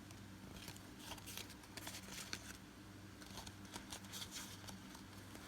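Faint rustling and crinkling of Pokémon card packs being handled, a scattered series of short scrapes, over a low steady hum.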